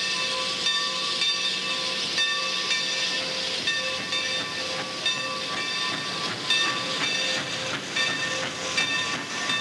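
Steam locomotive's whistle sounding several steady notes together as a held chord, broken by short gaps every second or so, over hissing steam.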